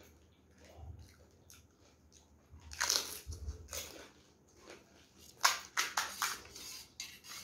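Crisp, hollow panipuri shells crunching as they are bitten and cracked open with the fingers: a loud crunch about three seconds in, then a quick run of sharp cracks a couple of seconds later, with quieter crackles and chewing between.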